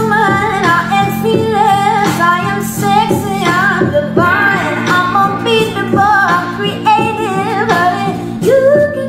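A song playing: a singing voice over a steady instrumental backing.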